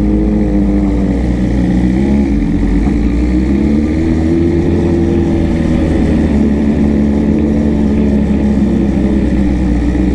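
Superbike engine running, its note dipping and rising gently with the throttle over a steady low rumble.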